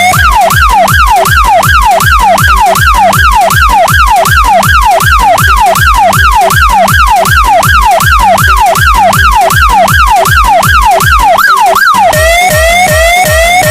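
Electronic police-siren yelp sample in a DJ dance track, its pitch sweeping rapidly up and down about two and a half times a second over a heavy, evenly repeating bass thump. About twelve seconds in the yelp gives way to a stepped, warbling electronic tone.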